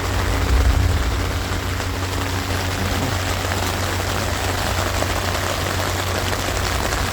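Rain pattering steadily on the fabric of a tent, heard from inside, with a steady low hum beneath it.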